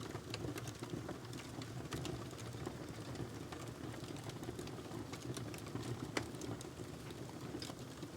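Wood fire crackling in a fireplace: a steady low rush of flames with scattered sharp pops and snaps, one louder pop about six seconds in.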